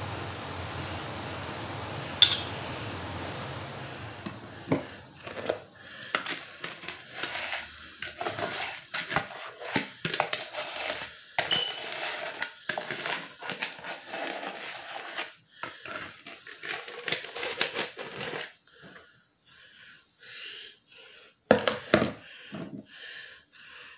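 Sugar scrub being stirred and scraped in a plastic mixing bowl: quick, irregular gritty scrapes and clicks, thinning out near the end, where there are a few sharp knocks. A steady hiss fills the first few seconds.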